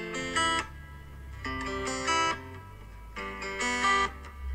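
Guitar music: chords struck about every one and a half seconds, each ringing briefly before the next.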